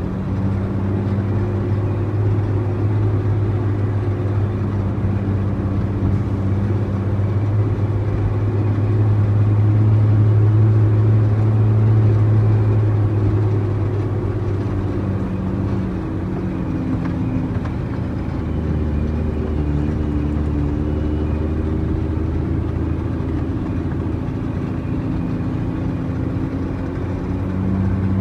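Diesel engine of an International 9300 truck running with a steady, deep note. The note drops lower about two-thirds of the way through and rises again near the end.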